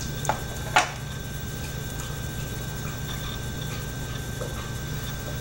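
Two short clicks about half a second apart near the start, the second louder, over a steady low hum.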